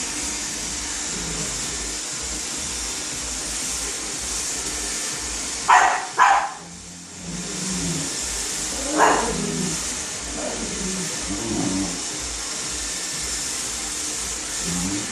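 A dog barks twice in quick succession about six seconds in, then once more about three seconds later, over the steady whirring hiss of a robot vacuum cleaner running.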